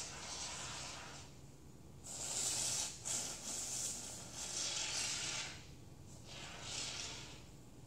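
Aerosol can of expanding spray foam hissing in about five short bursts as foam is squirted out onto a pot.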